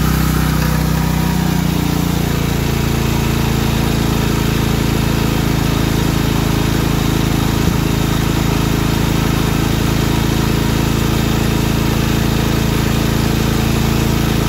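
Generac MegaForce 6500 portable generator's engine running steadily under an electrical load. Its output reads about 55 Hz, so the engine is turning a little below its governed speed. A single short click comes about halfway through.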